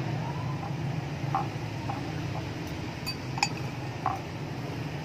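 Metal spoon and fork clinking now and then against a ceramic plate while tossing a leafy sweet potato leaf salad, the sharpest clink about three and a half seconds in, over a steady low hum.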